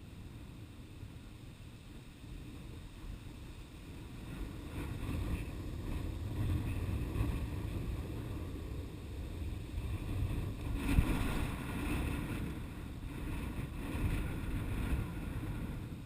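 Wind buffeting the microphone in gusts, a low rumbling that grows stronger about four seconds in, with a single knock about eleven seconds in.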